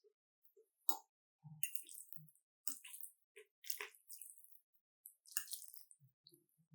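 Close-miked wet chewing and mouth sounds of someone eating: short, irregular squishy clicks and smacks with brief gaps between them.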